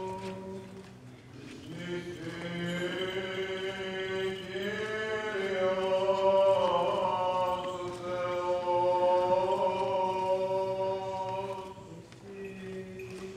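Byzantine chant of the Greek Orthodox liturgy: voices singing a slow melody over a steady held low note, swelling in the middle and falling away near the end.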